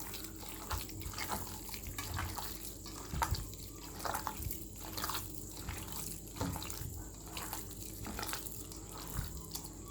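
Cooked rice with minced chicken and spinach being mixed by hand in a bowl: soft wet squelches, about one a second.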